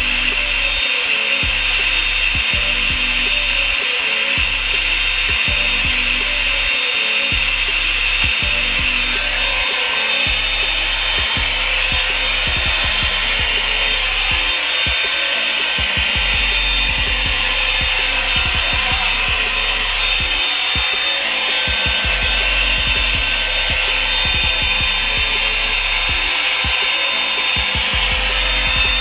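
Revlon hot-air brush blow dryer running steadily, a continuous rush of air with a high motor whine, over background music with a shifting bass line.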